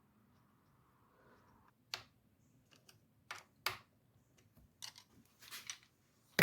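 A handful of scattered light clicks and taps: small parts and tools being handled while the carburetor linkage and covers are fitted back onto a small engine.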